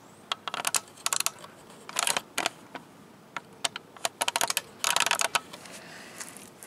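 Sharp clicks and light rattles in several short clusters, from small steel hardware being handled: flat washers, spacers and a lug nut for pulling a new wheel stud into the hub.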